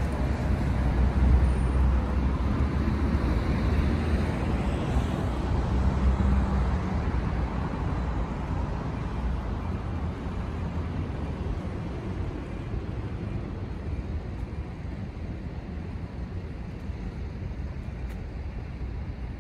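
Road traffic: a vehicle's low rumble is loudest for the first several seconds, then fades into steadier traffic noise.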